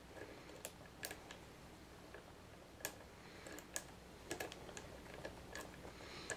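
Faint, irregular metallic clicks of a steel lock pick and tension wrench working the spool pin tumblers inside a Master Lock No. 570 padlock.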